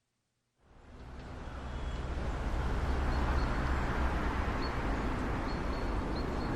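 Steady outdoor ambience fading in after a moment of silence: a low rumble under a hiss, with a few faint short high chirps in the second half.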